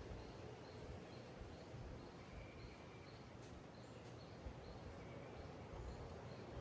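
Faint outdoor ambience: a low rumble with small, regular high chirps about three times a second and a couple of brief whistled notes.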